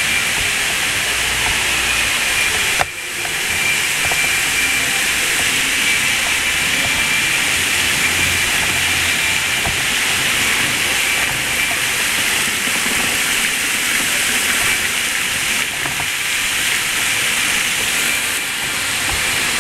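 Tiered fountain's water pouring and splashing into its basin, a steady loud hiss. A single sharp knock about three seconds in.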